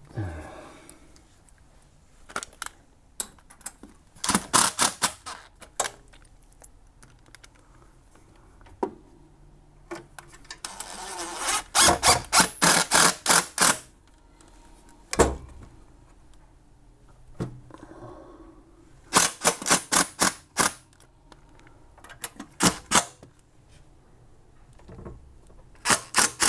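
Cordless drill driver driving in the fixing screws of a wall-mounted enclosure, in four short bursts of rapid clicks.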